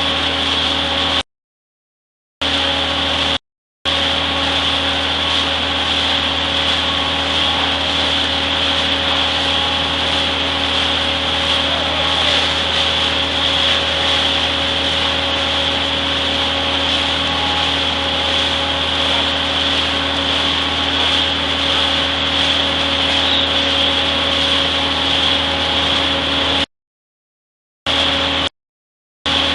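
Shotcrete spraying equipment running steadily: a machine drone with a constant loud hiss. The sound cuts out completely for about a second twice near the start and twice near the end.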